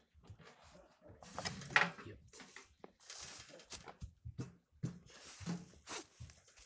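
Clatter of a petrol generator's steel frame being handled and tipped to drain out its oil: scattered knocks and clicks with short scraping and rustling, the loudest scrape about two seconds in.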